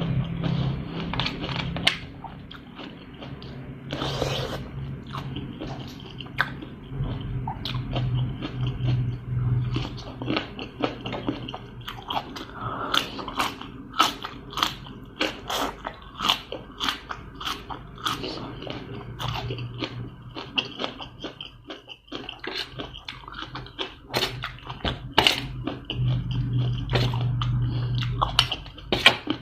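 A person biting and chewing crunchy food close to the microphone: many sharp, irregular crunches and mouth sounds from eating spicy seafood papaya salad with blue crab and shrimp.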